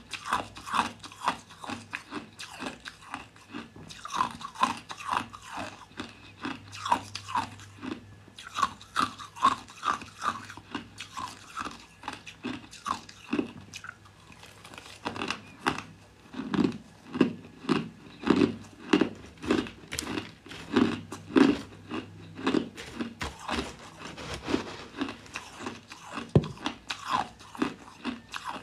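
Crushed ice being bitten and chewed close to the microphone: a fast run of sharp, brittle crunches, about two or three a second, with a short lull about halfway through before the chewing picks up again.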